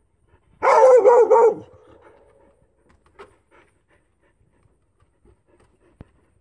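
Carolina dog giving one short, wavering high-pitched call of about a second, broken into three or four pulses.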